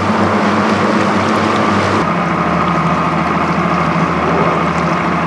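Motorboat engines running steadily at low speed, a constant hum with a steady pitch; the hum shifts to a slightly different tone about two seconds in.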